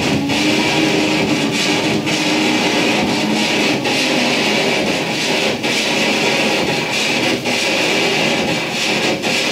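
Improvised noise music from a turntable and electronics: a dense, steady wash of noise with wavering low tones underneath. A sharp click repeats about every two seconds.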